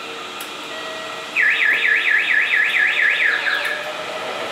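An electronic warning alarm warbling rapidly up and down, about five sweeps a second, starts about a second and a half in and stops after about two seconds. It is the loudest sound, over the steady noise of a train leaving an underground station.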